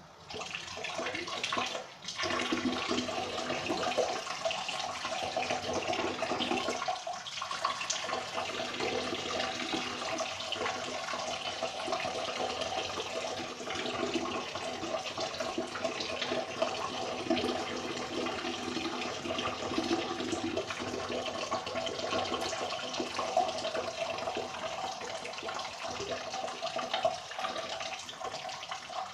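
A person urinating into a toilet bowl, the stream splashing into the water. It starts a moment in, falters briefly about two seconds in, then runs steadily.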